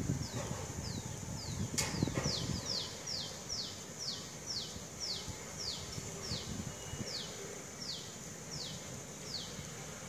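A small animal calling: a long run of short, high chirps, each falling in pitch, about two a second. One sharp click sounds a little under two seconds in.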